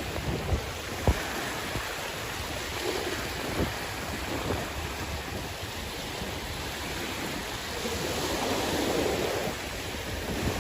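Sea waves washing on the shore: steady surf with a wave swelling up about eight seconds in, and a couple of brief sharp knocks early on.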